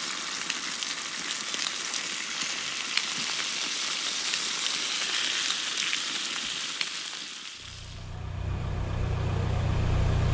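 Food sizzling in a hot pan, a dense hiss with scattered crackles and pops, fades out about seven and a half seconds in. A steady low drone of a car engine, heard from inside the cabin, then rises in its place.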